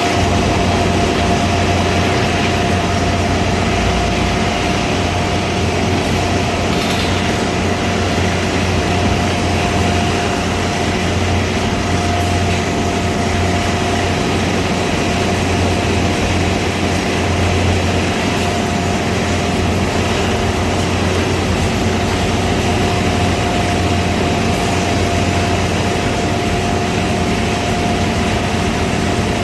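A JK691 hydraulic down-the-hole drill rig running steadily: a loud, constant low drone with a steady high whine on top.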